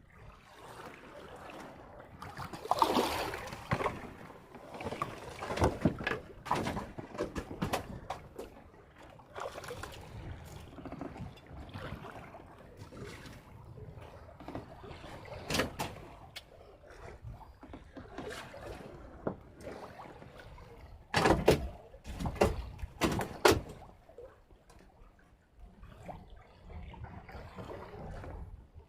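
Irregular knocks and clatter on a small fishing boat, loudest in clusters about three seconds in, around six seconds, and again after twenty seconds, over a low wash of water.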